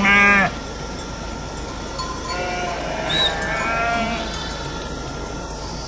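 A flock of sheep bleating: one loud bleat right at the start, then several fainter, overlapping bleats about two to four seconds in.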